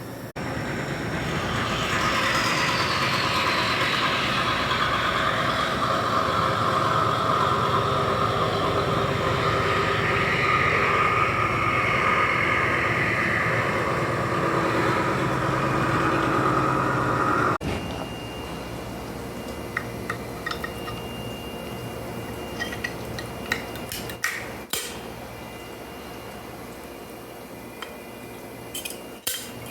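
CNC milling machine cutting a steel block: a loud, steady machining whine with a shifting higher tone, which cuts off abruptly partway through. A quieter machine hum and a few sharp metallic clinks follow.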